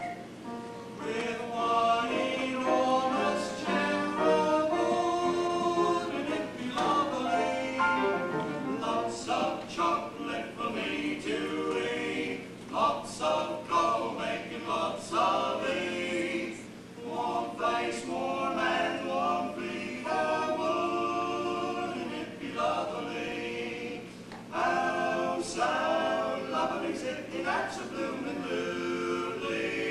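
Male vocal quartet singing in close harmony without accompaniment, in phrases with short breaks between them.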